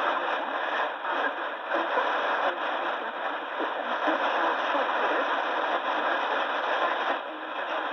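Roberts R861 portable receiver playing Radio New Zealand International's shortwave AM signal through its loudspeaker: a weak-signal voice half-buried in steady static hiss, with the narrow, tinny sound of AM reception.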